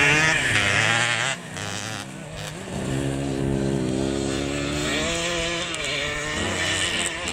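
Vintage Kawasaki motocross motorcycle's engine running under throttle as the bike rides over grass and dirt. It is loud at first, drops away about a second in, then revs up again and holds through the rest.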